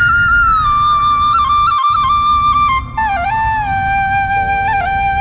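Background music: a single flute playing a slow, ornamented melody, pausing briefly near the middle and going on in a lower phrase, over a steady low rumble.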